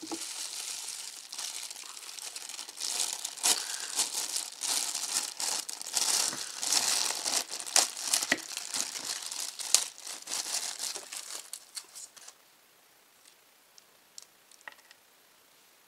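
Plastic packaging crinkling and rustling as a toy figure is unwrapped from bubble wrap and pulled out of a thin clear plastic bag. The crinkling stops about twelve seconds in, leaving only a few faint ticks.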